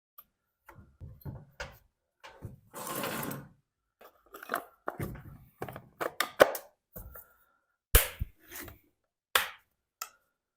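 Scattered light clicks and knocks of small tools and metal parts being handled, as a new spark plug is picked up, gapped and fitted to the chainsaw, with a short hiss about three seconds in.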